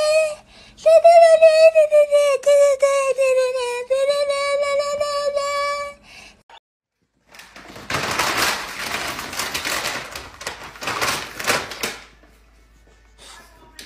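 A high, wavering musical note, held for about six seconds with a short break near the start. After a brief silence comes crinkling and rustling plastic with small scrapes and clicks as a bulldog puppy moves about inside a clear plastic bag; this fades out near the end.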